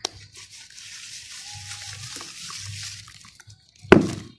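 A lump of wet red dirt squeezed and crumbled by hand over a basin of muddy water, giving a fine, steady crackling trickle, then one loud splash near the end as a chunk drops into the water.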